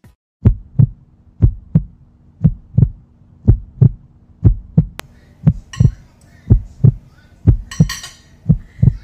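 Heartbeat sound effect: steady paired low thumps, lub-dub, about once a second, laid in as a suspense effect.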